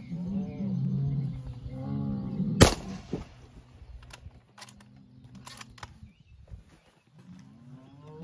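Cattle mooing, then a single rifle shot about two and a half seconds in, the loudest sound, followed by a few faint clicks. It is a scoped rifle fired at cattle in a stockyard to kill a beast for home butchery.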